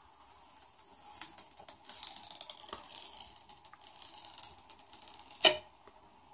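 Tempered glass screen protector being peeled off a Google Pixel 6's screen: a dense crackle of fine ticks as the adhesive lets go, ending in one sharp snap about five and a half seconds in.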